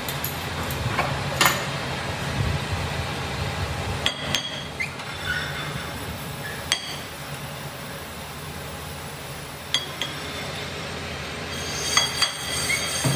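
Scattered metal clinks and knocks as a cast brake-disc blank is handled in a lathe's chuck, then three quick hammer taps on the disc near the end, each ringing briefly, as it is seated true before the chuck is tightened. A steady low hum runs underneath.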